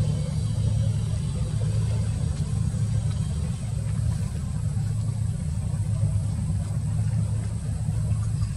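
A passenger ship's diesel engines running, a steady low drone.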